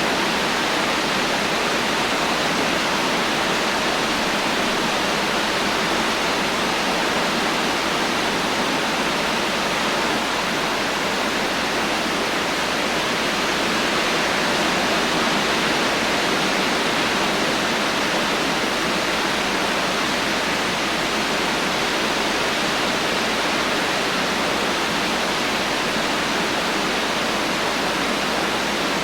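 Heavy rain falling steadily as an even, dense hiss, with no thunder.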